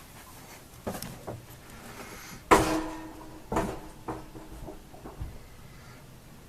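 Scattered knocks and clicks of something being handled in a small enclosed space, such as a yacht's cabin. The loudest is a sharp knock about two and a half seconds in that rings briefly, with lighter knocks before and after it.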